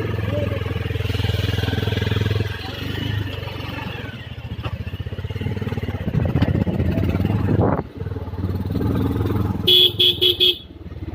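Single-cylinder engine of a Bajaj Pulsar 220F motorcycle running under way, steady at first, then rising and rough before it drops off sharply. Near the end a horn gives four short, quick honks.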